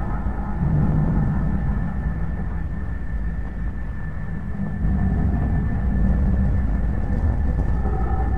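Dark ambient drone: a dense, steady low rumble with a thin high tone held above it, growing louder about five seconds in.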